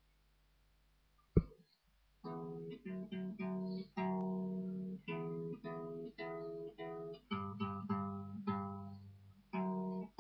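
Guitar playing a run of chords, picked one after another about twice a second with short breaks between them, each ringing out and fading. About a second and a half in, before the playing starts, there is a single sharp knock.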